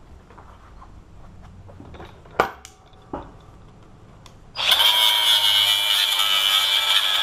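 A few light metal clicks and one sharp knock of handling, then about halfway through an electric power tool starts and runs steadily with a high whine, set to removing the rivets that hold the cut padlock's case together.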